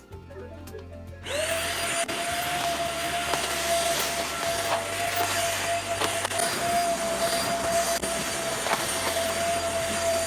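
Vacuum cleaner switched on about a second in, then running steadily with a high whine over its rushing airflow.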